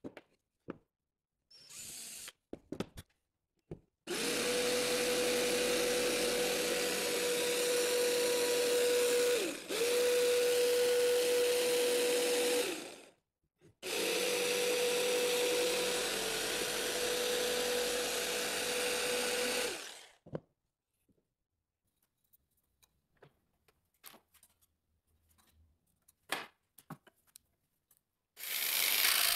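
Corded jigsaw cutting through drywall (gypsum board) with a steady pitch, in three spells of several seconds separated by brief stops, as an opening for an electrical box is cut out. A few light clicks and handling knocks come before and after the cutting.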